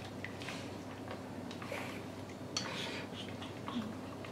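Wooden chopsticks stirring eggs setting in dashi with chicken in a stainless steel pot: faint, soft swishing with a few light taps against the pot.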